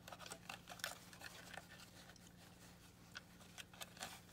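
Faint, irregular scratching and light clicks of scrubbing battery-acid residue out of a plastic toy remote's battery compartment, over a low steady hum.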